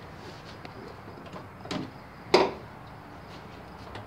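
Hand tools and metal parts clicking and knocking as something is fitted back on in a car's engine bay, with a sharper clack about two and a half seconds in.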